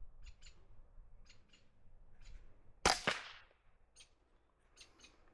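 A single suppressed rifle shot about three seconds in, from a short-barrelled Ruger Charger .22 LR fitted with a silencer and firing subsonic rounds: one sharp report with a brief tail.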